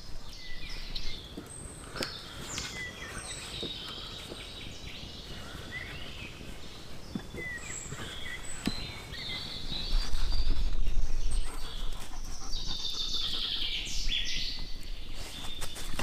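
Forest birds singing, with many short chirps and trills throughout and a burst of busy song near the end. About ten seconds in, a low rumble lasting a couple of seconds is the loudest thing, with a few sharp clicks scattered through.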